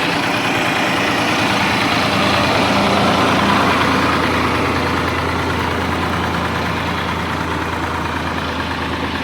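Diesel engine of a heavy machine running steadily at idle, growing slowly quieter over the second half.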